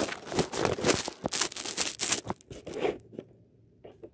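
Irregular rustling and crinkling handling noise with many short crackles, stopping about three seconds in.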